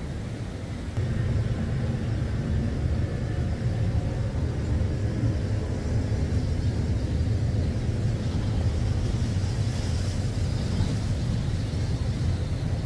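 Surf breaking against a rock jetty, with wind buffeting the microphone in a steady low rumble that grows louder about a second in.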